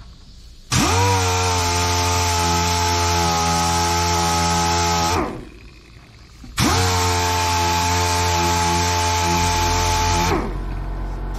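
Air-powered random orbital sander sanding polyester body filler, run twice for about four seconds each time. Each run starts suddenly, holds a steady pitch, and winds down with a falling pitch when it is switched off.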